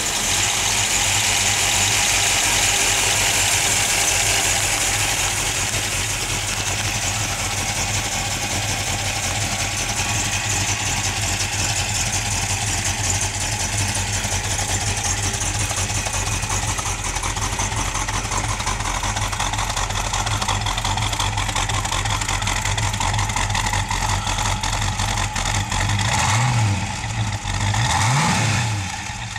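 1966 Ford Mustang GT K-code's 289 cubic-inch Hi-Po V8 idling steadily, with two brief revs near the end.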